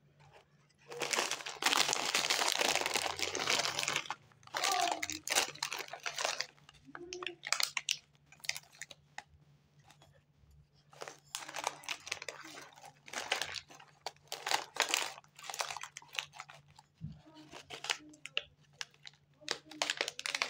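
Plastic candy wrappers crinkling as hands handle them: a long dense stretch of crinkling about a second in, then shorter irregular bursts of rustling and crackling. A faint steady low hum runs underneath.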